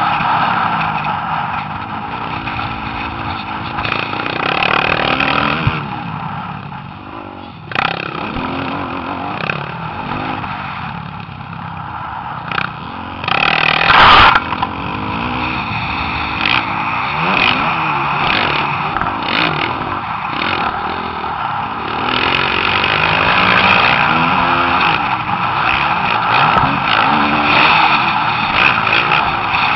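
Motocross dirt bike engines revving up and down repeatedly as they are ridden around the track, over a loud rushing noise. A brief, very loud jolt about halfway through.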